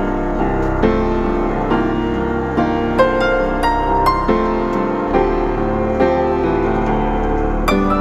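Background piano music.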